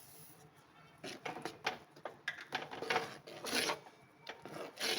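A spoon scraping and knocking against a cooking pot in a run of irregular strokes, starting about a second in, as sesame seeds are mixed into the thick jaggery and rice-flour kajjaya dough.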